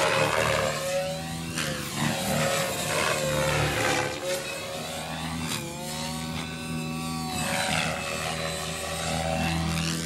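Radio-controlled model helicopter in aerobatic flight, its rotor and motor whine dipping in pitch and rising again several times as it swoops and turns.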